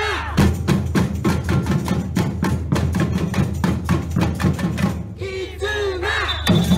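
Brazilian samba music with a fast, busy percussion beat, with a sliding pitched sound coming in again near the end.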